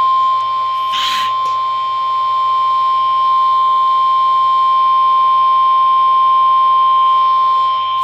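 Midland weather radio's speaker sounding the NOAA Weather Radio 1050 Hz warning alarm tone: one loud, steady, unbroken tone, the attention signal that announces a warning broadcast, here a special marine warning. A brief rustle about a second in.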